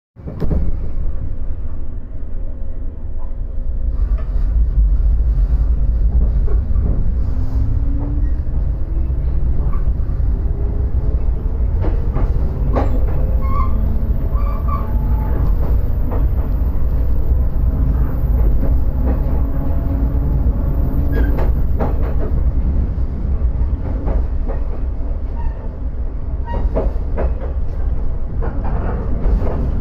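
JR 115-series electric train heard from inside the carriage as it pulls away and gathers speed. A heavy low rumble runs throughout, with the motor hum rising in pitch for several seconds, then the steady running of wheels on rails with scattered clicks over the rail joints.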